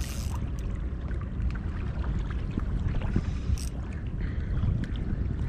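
Wind buffeting the camera microphone in a steady low rumble, with water lapping at the shore and a few small faint clicks.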